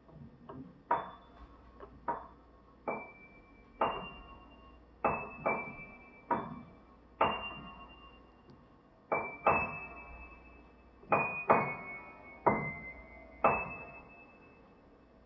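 Sparse music of single high struck notes, roughly one a second at uneven spacing, each ringing and fading away before the next.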